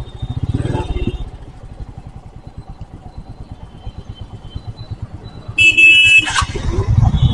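Royal Enfield Meteor 350's single-cylinder engine idling with a steady low pulsing rumble in city traffic. About five and a half seconds in, a vehicle horn honks loudly for under a second, and the engine rumble grows louder near the end.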